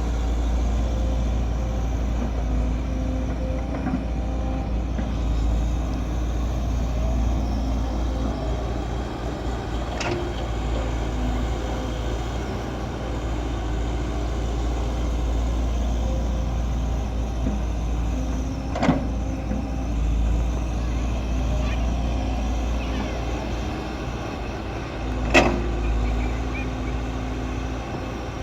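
Heavy diesel earth-moving machinery running steadily, a backhoe loader and dump truck working soil, with three sharp metallic knocks spaced several seconds apart.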